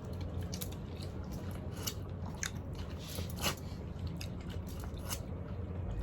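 Close-up eating sounds of boiled seafood being eaten by hand: chewing, with scattered small crunches and clicks of shells, over a low steady hum.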